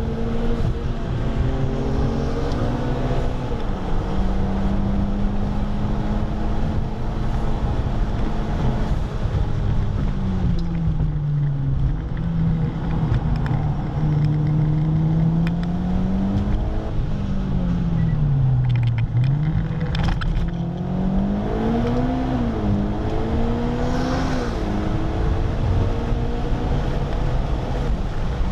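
Car engine heard from inside the cabin while lapping a race track. It holds a steady pitch, sinks about a third of the way in, drops low about two-thirds in and climbs back up, then rises and falls a few times near the end, over constant road and wind noise.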